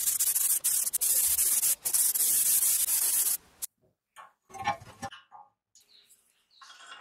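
Compressed-air paint spray gun hissing as it sprays a motorcycle fork part, with a couple of brief breaks as the trigger is eased, stopping after about three and a half seconds. A moment later come a few light knocks of metal parts being handled.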